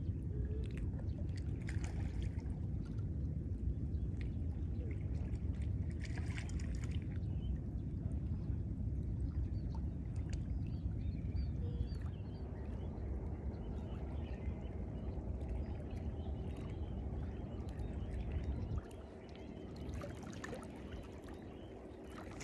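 Seawater lapping and splashing against shoreline rocks, under a heavy low rumble of wind on the microphone. The rumble drops away sharply about nineteen seconds in.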